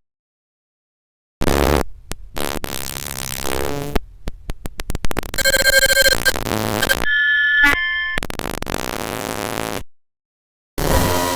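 Digital glitch sound effect: stuttering bursts of noise and distortion, chopped off abruptly, with brief electronic beeps and tones, like a broken phone or radio signal. It starts after a second or so of silence, cuts out about ten seconds in, and starts again near the end.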